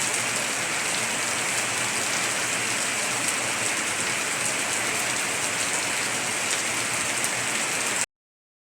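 Heavy rain falling on a tiled roof: a steady hiss that cuts off suddenly near the end.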